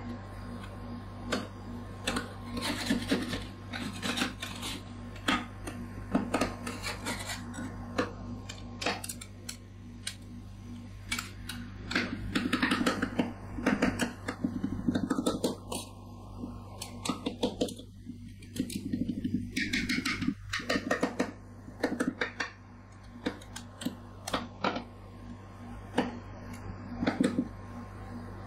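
Metal spatulas chopping and scraping a half-frozen coffee ice cream mixture on a frozen steel ice-roll plate: irregular sharp taps and scrapes of metal on metal, coming in bursts, over a steady low hum.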